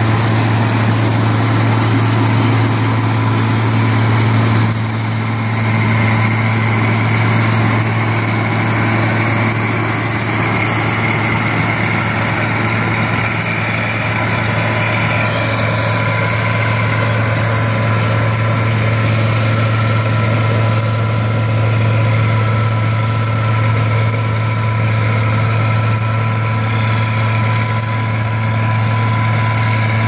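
John Deere 630 combine harvester running steadily under load while cutting and threshing grain, its 95 hp Perkins diesel engine giving a strong steady low drone, with a few thin steady higher tones and machinery noise over it.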